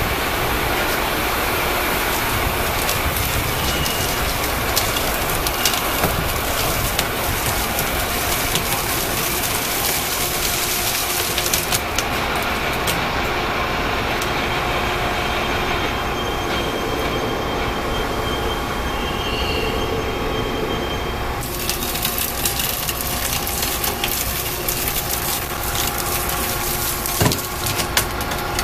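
Hydraulic motor-wrecking press running steadily, its electric motor and hydraulic pump giving a steady whine, as the ram drives down through an electric motor's copper-wound stator to split it in half. The sound grows duller in the middle and brighter again, with scattered clicks and a few sharp knocks near the end.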